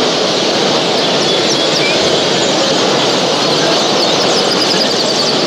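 Many small caged show birds chirping and twittering at once, quick high chirps over a steady, dense din.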